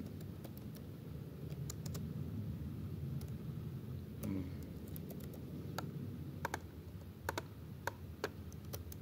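Irregular, sparse clicks of computer keys being pressed, over a steady low background noise.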